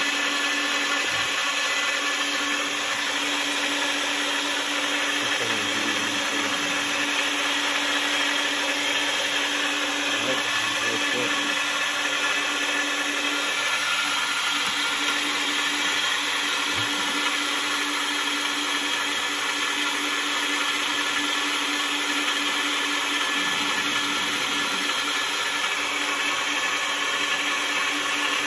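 Electric stainless-steel meat grinder running steadily as it grinds raw meat, its motor giving a constant hum with one steady tone.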